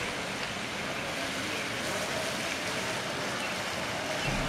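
Steady outdoor ambience from a balcony: an even rushing noise with no single event standing out.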